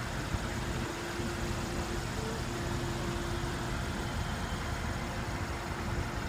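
Steady low rumble of a car engine idling, with a constant hum.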